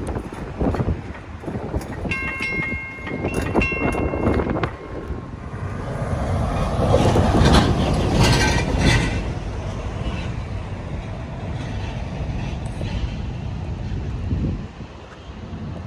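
Train rolling through a railroad crossing, its wheels clattering and rumbling over the rails. About two seconds in, a chord of steady high tones sounds for two to three seconds with a short break. The passing train is loudest about halfway through.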